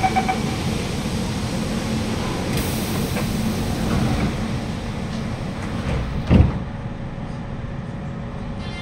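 Inside a Siemens C651 train car standing at a platform: the door-closing chime ends just at the start, over a steady hum from the car. About six seconds in the sliding doors shut with one loud, short thud. A faint steady tone follows.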